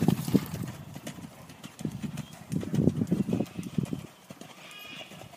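Hoofbeats of a black stallion being ridden on sand, dull thuds that are loudest at the start as he passes close and fainter as he moves away along the far rail.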